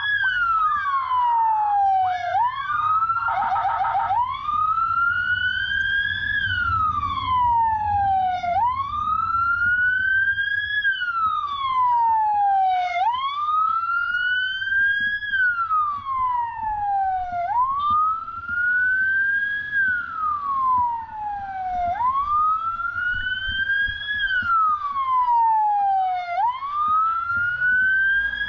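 Police motorcycle siren on a wail, each cycle rising quickly and falling slowly, repeating about every four and a half seconds, with a short fast warble about three seconds in. The motorcycle's engine rumbles low beneath it.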